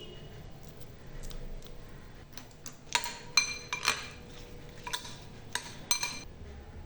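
A spoon clinking against a mixing bowl while ingredients are added and mixed: a quick run of about eight sharp, ringing clinks in the second half.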